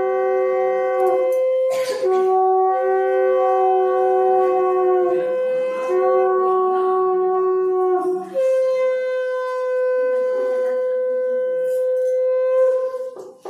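Conch shells (shankha) blown together in long, steady held notes at two pitches, with short breaks for breath; the blowing of conches marks an auspicious moment in the wedding rite. Near the end a single conch holds its note alone, then stops.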